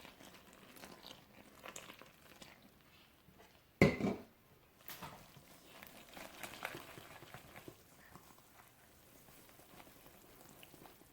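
Soft kitchen handling sounds as salt and water go into a bowl of flour for a batter: light rustling, scraping and small clicks of utensils and bowl. About four seconds in, one sharp knock with a short ring, like a cup or spoon striking the bowl.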